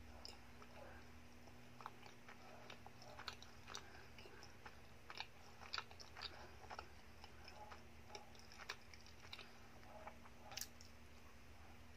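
Close-up chewing of a mouthful of donut with the mouth closed: sparse, faint, irregular mouth clicks and smacks over a faint steady hum.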